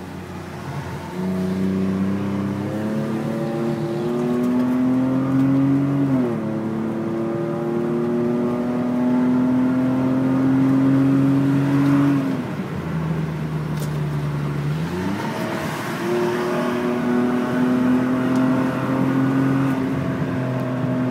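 BMW 523i E39's 2.5-litre straight-six running through a handmade aftermarket exhaust, pulling through the gears: the engine note climbs steadily, falls sharply at gear changes about 6 and 12 seconds in, then rises again after about 15 seconds and holds.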